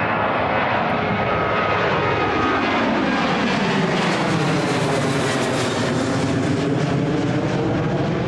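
Jet airliner's engines running loud and steady as the plane climbs away overhead just after takeoff, with a slow sweeping whoosh in the tone as it passes.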